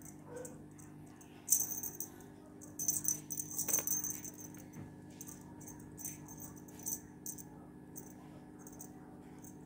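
Small jingle bell on a feather wand cat toy jingling in short shaken bursts as a cat bats and grabs at it, loudest about one and a half seconds in and again from about three to four seconds.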